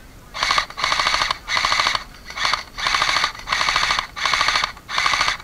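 Airsoft electric rifle, a JG G3 AEG, firing on full auto in about seven short bursts of rapid shots with brief pauses between them.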